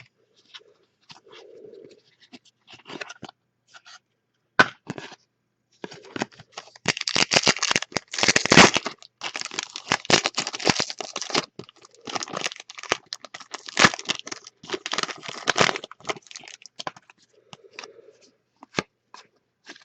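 A trading-card pack wrapper being torn open and crinkled in the hands, with the cards handled. The crackling starts as scattered small clicks, runs dense and continuous through the middle, then thins out toward the end.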